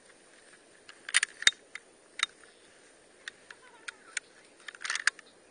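Sharp metallic clicks and rattles of an M1 carbine being handled after it failed to fire. There is a quick cluster of clicks about a second in, single clicks after it, and another cluster near the end.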